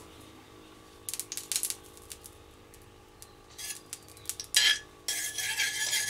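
A metal spoon clinking and scraping against a kadai as oil is spooned in and spread around the pan: a few light clicks about a second in, a sharp knock of spoon on metal, then a steady scrape of the spoon across the pan's bottom near the end.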